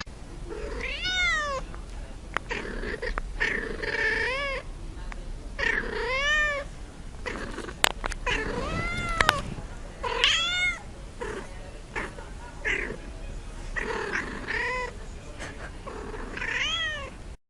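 Domestic cat meowing over and over, drawn-out calls that rise and then fall in pitch, every second or two, with a couple of sharp clicks about eight seconds in.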